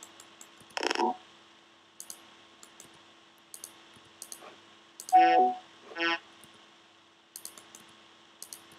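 Short computer-synthesized notes from Sonic Pi's beep, modulated detuned-saw and FM synths, triggered by the moving object's position. One note comes about a second in and two come close together around five and six seconds in, the first of those the loudest. Light clicks sound between them over a faint steady hum.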